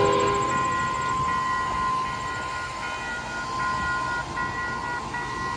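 Railroad grade-crossing warning bell ringing in a steady, even repeating pattern, with a low rumble underneath: the crossing signals are activated for an approaching train.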